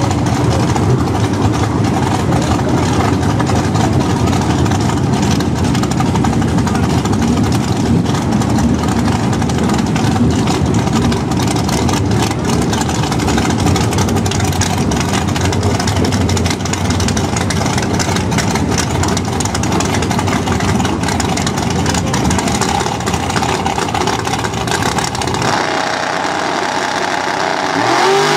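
Two drag-race cars idling loudly at the starting line: a supercharged Corvette with its blower through the hood and a red mid-1960s Dodge. Right at the end the engine pitch begins to rise as they rev for the launch.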